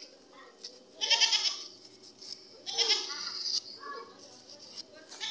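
Goat bleating, two loud quavering calls and a fainter third, while its fractured leg is being splinted and bandaged.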